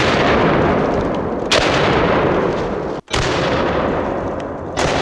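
12-gauge IWI Tavor TS12 bullpup shotgun firing triple-aught buckshot: four loud shots about a second and a half apart, each with a long echoing decay.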